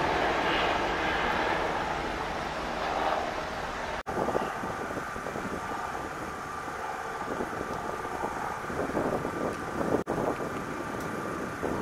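Jet engine roar of a departing Southwest Boeing 737, fading as it climbs away, cut off abruptly about four seconds in. After that comes wind buffeting the microphone with a faint steady whine.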